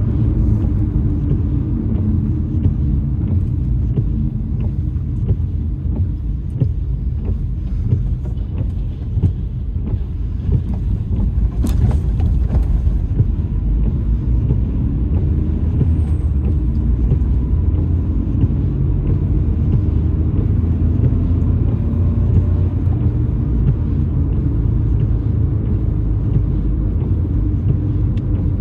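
Steady low rumble of a car driving on a wet road, heard from inside the cabin, with faint scattered ticks and one sharp click about twelve seconds in.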